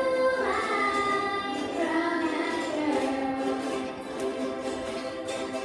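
A child's voice singing a song through a microphone, with children's ukuleles playing along; other children's voices join in.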